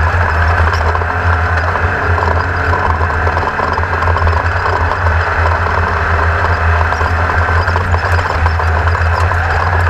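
A vehicle engine running steadily, a loud, even low drone with a noisy rush above it.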